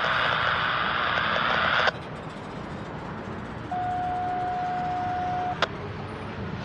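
Railroad radio scanner: about two seconds of radio static that cuts off abruptly, then a steady electronic tone for about two seconds ending in a sharp click.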